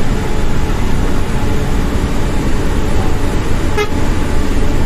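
Steady road and engine noise inside a vehicle driving at speed, with a brief horn toot near the end.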